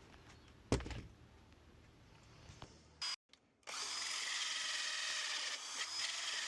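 Power drill running steadily with a hole cutter, cutting a round hole in a hollow-core door; it starts about halfway through. A single knock comes just before a second in.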